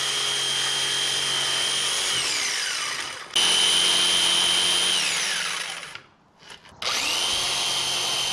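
Corded electric jigsaw (saber saw) cutting across the bottom of a boat's self-steering trim tab, in three runs. The motor whine winds down with falling pitch about two seconds in and starts again, louder, about a second later. It winds down again near the middle, and after a short pause it starts once more and keeps running.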